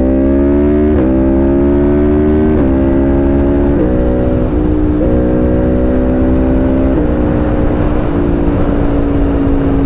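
Yamaha MT-09's three-cylinder engine pulling hard under throttle and being quick-shifted up through the gears without the clutch: the engine note climbs, then drops suddenly at each of several upshifts about a second or so apart, with no break in the sound. It settles to a steady cruising note near the end, under steady wind noise.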